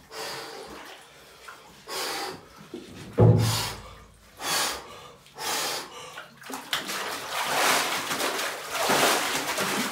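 A man lowering himself into the cold water of a wooden spring-fed bathing pool: short sharp breaths about once a second with a thump about three seconds in, then continuous splashing and sloshing as he dunks himself.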